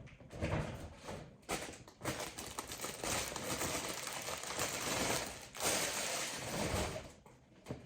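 Plastic packaging crinkling and rustling as it is handled, in short bursts at first and then a longer stretch through the middle, fading near the end.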